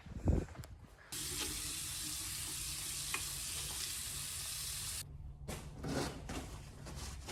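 Water running from a tap into a sink for about four seconds, starting and stopping abruptly, with a short knock just before it and light clatter afterwards.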